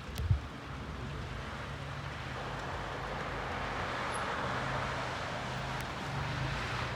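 A car engine running steadily while the tyres slip and spin on snow, trying to get up the driveway; a broad hiss swells towards the middle and eases off.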